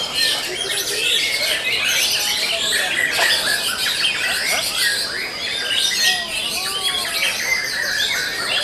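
Dense chorus of many caged songbirds singing at once, white-rumped shamas among them: overlapping whistles, trills and quick chirps with no pause.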